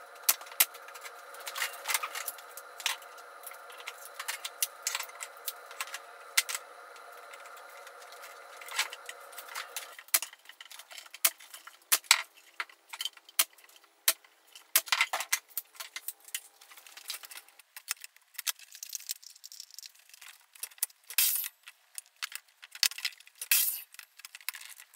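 Fast-forwarded workshop sounds: a rapid run of sharp clicks and clatter from a pneumatic nailer firing into pine boards and the boards being handled, over a steady hum that stops about ten seconds in; after that the clicks and knocks come sparser and irregular.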